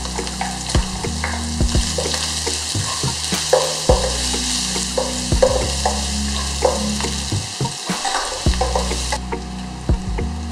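Bacon, garlic and chopped onion sizzling in hot oil in a non-stick wok while a spatula stirs and scrapes them, with frequent short scraping strokes over a low steady hum. The high frying hiss falls away about nine seconds in.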